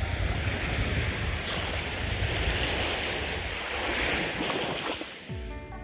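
Sea surf washing on the shore, with wind rumbling on the microphone. Outro music with a plucked guitar comes in right at the end.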